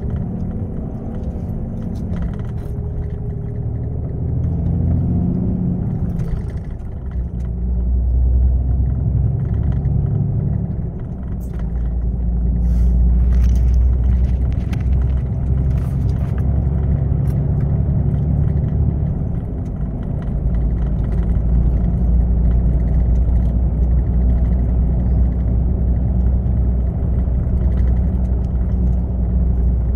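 Lorry engine and tyres running at road speed, heard from inside the cab: a steady heavy low rumble whose engine note shifts in pitch a few seconds in and then settles heavier, with scattered light clicks and rattles.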